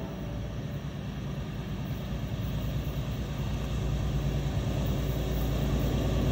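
Metro-North P32 diesel locomotive approaching at the head of its train, a low, steady engine rumble growing gradually louder.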